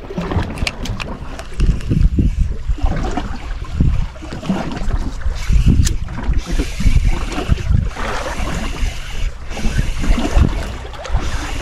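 Wind buffeting the microphone aboard a small fishing boat at sea: uneven, gusty low rumbling, with a stretch of brighter hiss in the middle.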